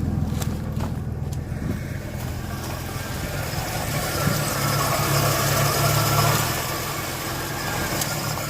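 Chevrolet Nova engine idling unevenly right after a hard start, a little louder for a couple of seconds midway; it is only just staying running on a weak, freshly charged battery.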